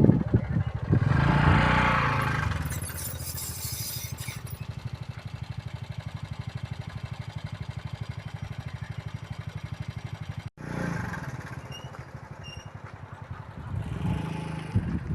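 A motor vehicle engine running with a steady, fast low throb, louder for a couple of seconds near the start, with a sudden brief dropout about ten seconds in.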